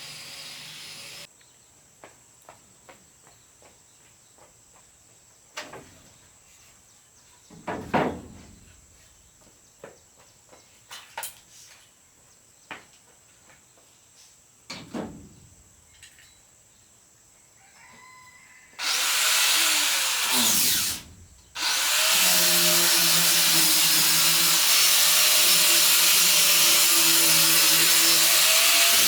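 Scattered knocks and taps of wood being handled. About two-thirds in, an electric power tool starts up on wood, stops briefly, then runs steadily with a held whine.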